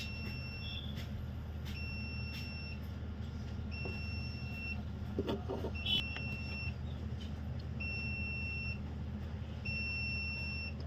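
A high electronic beep, just under a second long, repeating about every two seconds over a steady low hum, at a soldering bench where a new charging socket is being soldered onto a keypad phone's board; a few small clicks around the middle.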